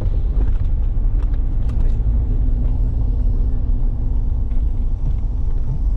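A car driving along a rough dirt track, heard from inside the cabin: a loud, steady low rumble of engine and tyres, with a few small knocks and rattles.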